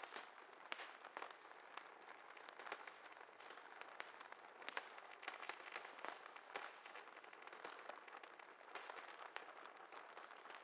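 Fireworks going off, faint: a dense, unbroken string of sharp pops and crackles with no deep booms.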